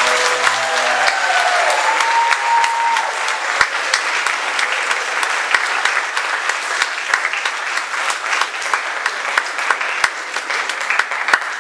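Audience applauding in a hall as a ballet number ends, dense clapping with a voice or two calling out in the first few seconds, thinning to scattered claps near the end.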